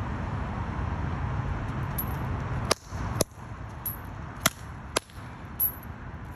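A chain whip being swung and cracked: a string of sharp cracks, the loudest coming in two pairs about half a second apart, over a steady low rumble that drops away at the first loud crack.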